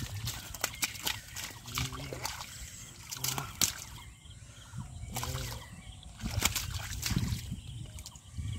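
Splashing and sloshing in shallow muddy water as a large fish is grabbed by hand and struggles, with a run of sharp wet slaps.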